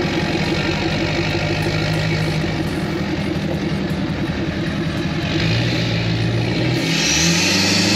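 Toyota GR Supra's engine and HKS exhaust running, stepping up in pitch twice near the end as the car is revved or accelerates.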